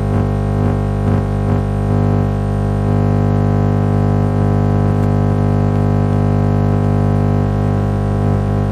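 FM radio playing a transmitter's signal that is swamped by a loud, steady buzz of many pitched tones. According to the title this is interference from a switch-mode power supply chopping into the stereo encoder. For the first three seconds faint pulses, about two a second, beat through the buzz; after that the buzz holds steady and unbroken.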